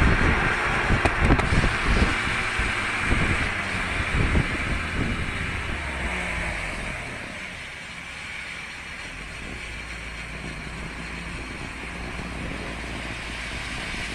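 Renault Mégane RS 250 Cup on the move, wind buffeting the microphone over road and engine noise, which fade away over the first seven or eight seconds as the car slows, leaving a quieter steady low hum.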